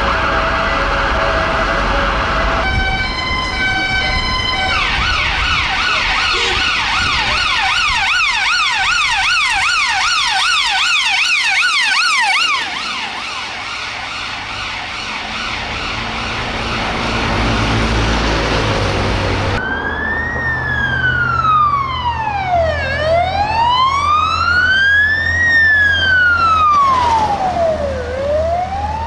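A run of emergency sirens across several cuts. The unmarked police BMW 330d GT's siren plays a stepped tone pattern, then a fast yelp. After a stretch of traffic and engine noise comes the slow wail of a fire service water carrier's siren, rising and falling about every five seconds.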